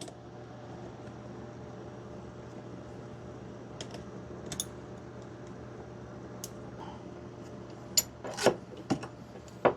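Metal tools clicking and clinking against metal parts in short taps, several in a row in the last couple of seconds, over a steady low hum.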